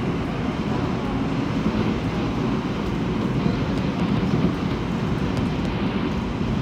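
Seoul subway train running at speed through a tunnel, heard from inside the carriage: a steady rumble of wheels on rails and running gear.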